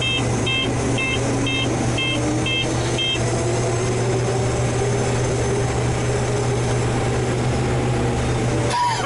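Steady engine drone heard inside a farm harvest machine's cab, with a high warning beeper sounding about twice a second until about three seconds in. A slowly rising tone runs under it, and a single knock comes near the end.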